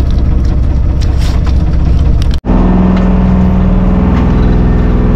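Fishing boat's engine running steadily and loud. The sound breaks off for an instant about two and a half seconds in and comes back with a stronger, steadier hum.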